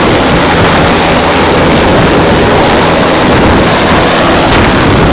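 Helicopter running at close range: turbine engine and turning rotor make a loud, dense, steady noise with a thin high whine over it.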